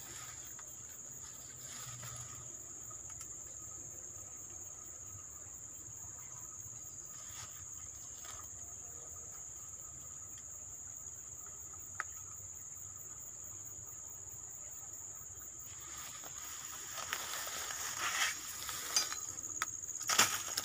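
Insects chirring steadily at one high pitch. From about three quarters of the way in, crackly rustling of leaves and undergrowth joins in as someone pushes through the bamboo and grass.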